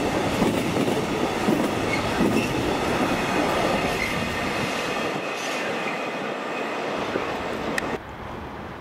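Container freight train's wagons rolling past, wheels clattering over rail joints with a faint high squeal. The clatter fades as the last wagons go by, and the sound drops suddenly to a quieter background hum near the end.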